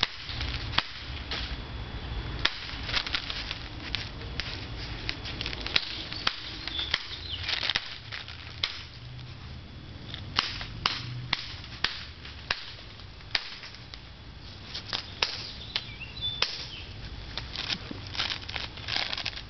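Many sharp cracks at irregular intervals, some single and some in quick runs, from a Glock 18 airsoft pistol being fired.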